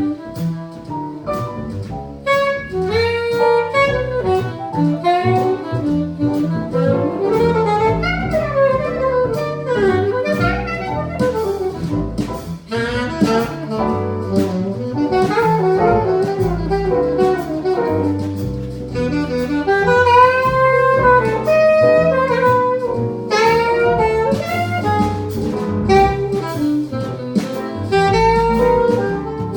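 Small jazz combo playing an instrumental solo chorus, with an alto saxophone leading in quick melodic runs over piano, walking double bass and drums.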